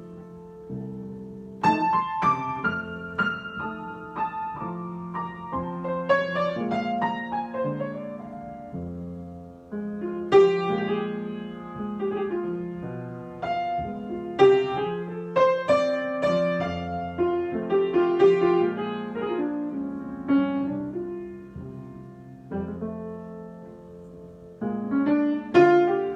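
Solo piano improvisation: chords under a wandering melodic line, the notes struck and left to ring and fade, with brief lulls between phrases.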